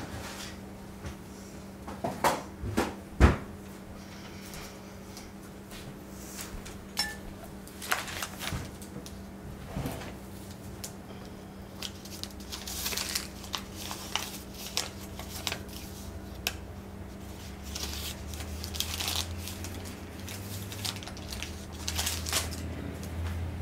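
Scattered light clicks and knocks, the loudest about three seconds in, over a faint steady low hum.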